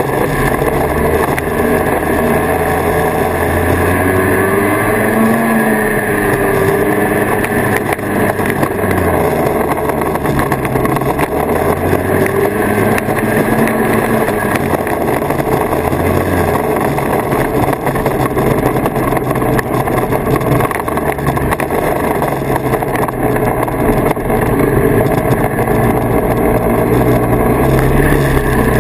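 1979 Kawasaki Invader 440 snowmobile's two-stroke engine running under way, loud and steady, its pitch rising and falling several times with the throttle.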